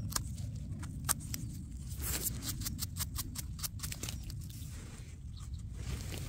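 Small knife scraping and trimming soil off a porcini mushroom's stem: a run of short crisp scrapes, thickest from about two to four seconds in, over a low steady rumble.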